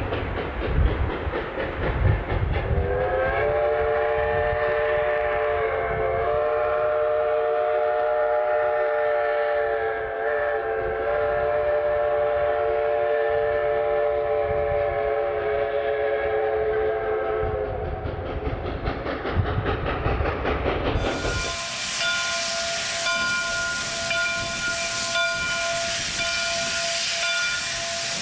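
Canadian Pacific 2-8-0 Consolidation steam locomotive No. 3716 working hard under load, its exhaust beating low, then sounding a long multi-note chime whistle for about fifteen seconds, wavering slightly twice; the exhaust beats return after the whistle. About three-quarters of the way through, the sound switches to a loud steady hiss of steam venting from steam locomotives' open cylinder cocks, with steady high tones over it.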